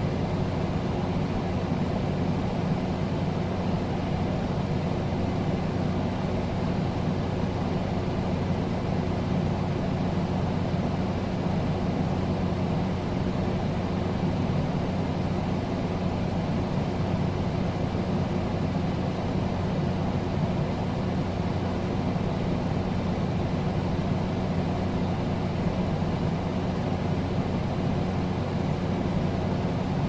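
Air conditioner running steadily: an even low hum under a constant rush of fan noise, with no changes.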